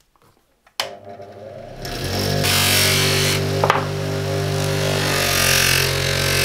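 Pro-Max bench polisher switched on with a click about a second in, running up to speed into a steady electric-motor hum. Over it comes a loud hissing scrape as a steel sledgehammer head is pressed against the spinning colour-stitched buffing mop, charged with black polishing compound, with a single short knock partway through.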